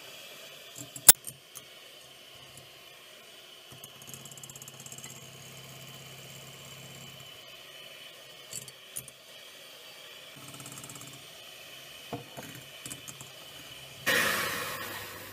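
Electric hand mixer running steadily with a thin whine, its wire beaters whisking egg whites and sugar in a glass bowl and clinking against the glass. There is a sharp clink about a second in and a louder rattling burst near the end.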